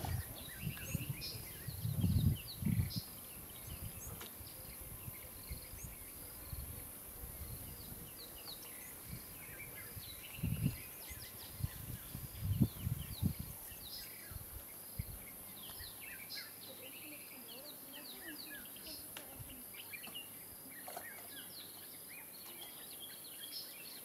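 Outdoor wetland ambience: small birds chirping in quick short notes throughout over a steady high hiss, with a few low rumbling bumps about two seconds in and again around ten to thirteen seconds in.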